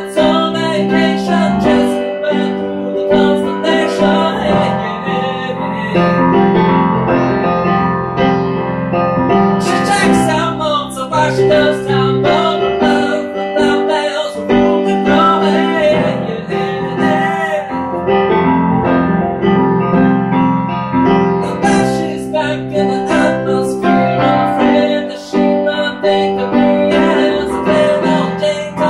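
Grand piano played in chords, with a man singing along.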